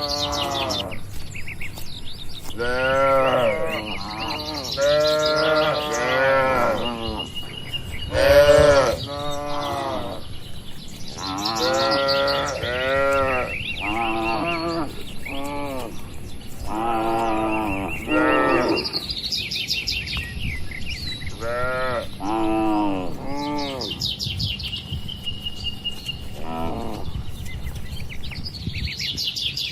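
Cattle mooing, several animals in turn: a dozen or so short calls, each rising and then falling in pitch, some overlapping.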